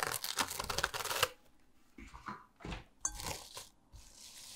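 Plastic cling film crinkling as hands stretch and press it over the rim of a glass bowl, densest in the first second or so, then in shorter patches.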